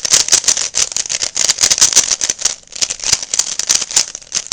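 Plastic 3x3 Rubik's Cube being turned fast to scramble it: a rapid, irregular run of clicks and clacks as the layers snap round.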